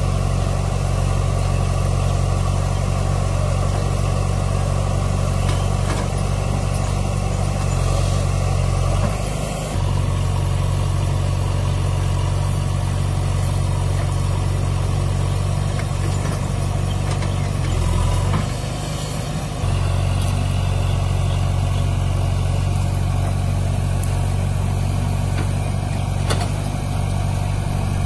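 Mahindra 575 DI tractor's four-cylinder diesel engine idling steadily, with a JCB backhoe loader's diesel running alongside as it loads soil into the tractor's trolley. The low engine note dips briefly twice, about nine and eighteen seconds in.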